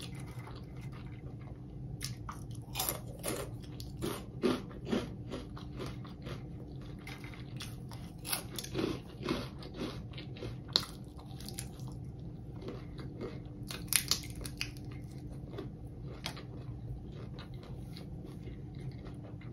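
Close-up crunching and chewing of fried hot-Cheetos-breaded seafood dipped in nacho cheese: irregular crisp bites and crunches that come in clusters, with softer chewing between them.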